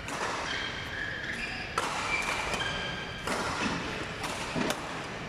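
Badminton rally: sharp racket strikes on the shuttlecock, several hits one to two seconds apart, with short shoe squeaks on the court mat between them, echoing in a large hall.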